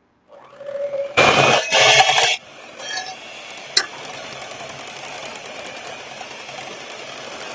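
Electric hand mixer beating heavy cream into a peanut butter and sugar ice cream base in a glass bowl: loud for about a second starting about a second in, then running steadily, with a single sharp click about four seconds in.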